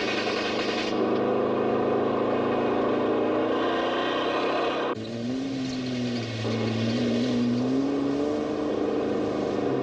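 Car engines revving hard during a chase, from a 1952 Ford Customline and a 1973 VJ Valiant Charger. The engine pitch rises and falls, with an abrupt change to a different engine note about five seconds in.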